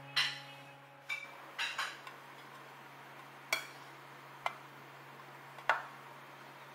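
Light clinks and taps of a food container and utensils being handled, about six sharp strikes with a short ring, over a steady low hum.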